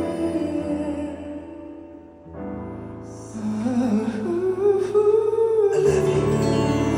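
Live pop ballad performed by a band with a singer. A held chord fades out about two seconds in, then a new chord and bass come in. A voice sings from about three seconds in, and the band swells fuller near the end.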